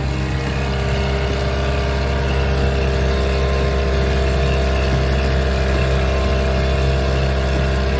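Dinghy outboard motor running at a steady speed under load, pushing a yacht slowly along. It is an even drone that does not change in pitch.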